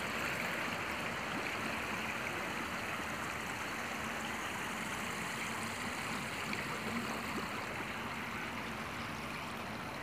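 A steady, unbroken rush of running water, with a faint low hum beneath it.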